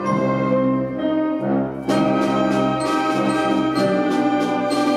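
Wind band of saxophones, clarinets and brass playing sustained chords; about two seconds in the full ensemble comes in louder, with sharp accents on a steady beat.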